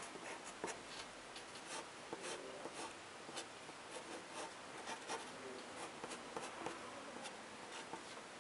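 Black ink pen scratching across paper in quick, repeated short strokes, as when hatching shading lines.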